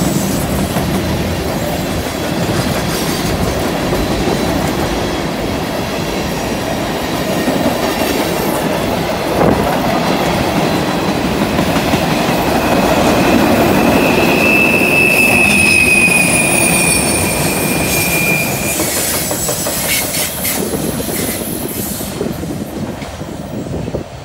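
Freight train cars rolling past, a steady rumble of steel wheels on the rails. From about halfway a high-pitched steel wheel squeal rings out for several seconds as the wheels grind through the curve. The sound fades near the end as the last car moves away.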